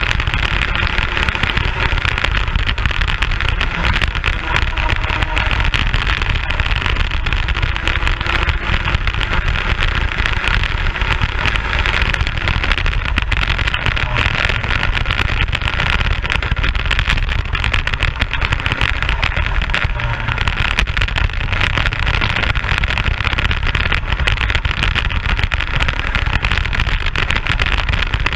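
Onboard sound of a racing kart at speed: its engine running, mixed with a dense rush of wind noise on the camera microphone, loud and steady with no breaks.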